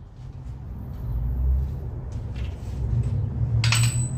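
A steady low rumble, with a single sharp metallic clink about three and a half seconds in.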